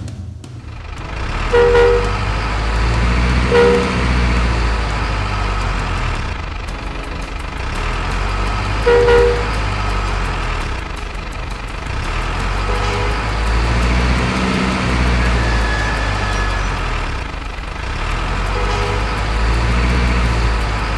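Truck engine rumbling steadily, swelling and easing slowly, with short horn toots: two loud ones in the first four seconds, another about nine seconds in, and fainter ones later.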